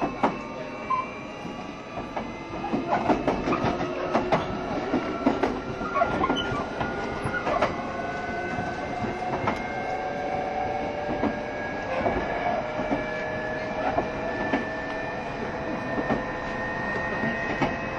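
Inside a JR Shikoku 7200 series electric train picking up speed: the motor whine rises slowly in pitch, with wheels clicking over rail joints and a steady running rumble.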